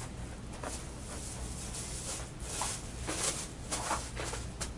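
A nylon stocking slid off a rolled-up plastic sheet, then the plastic unrolled by hand: soft, irregular rustling and crinkling swishes.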